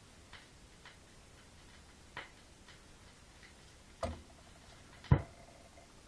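A few faint, irregularly spaced clicks, then two louder knocks about a second apart near the end. The second knock is the loudest and leaves a faint ringing tone. No music is playing.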